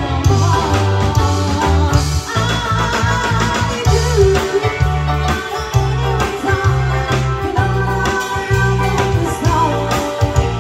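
Live band playing amplified pop-rock through a PA: electric guitars, bass, keyboard and a steady drum beat, with female vocals singing the melody over it.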